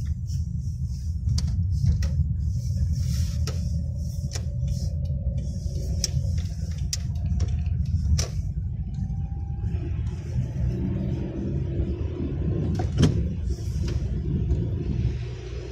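Steady low rumble of a car's engine and tyres heard from inside the cabin while driving on a slushy road, with scattered irregular clicks and knocks.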